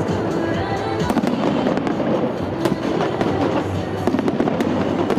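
A fireworks display going off continuously, with dense rapid crackles and pops, over music.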